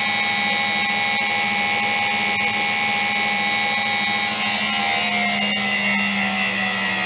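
Ardo washing machine's motor running with a high, steady whine, with faint ticks about once a second. About four seconds in, the whine starts to fall in pitch as the motor slows. The owner takes the motor to be broken.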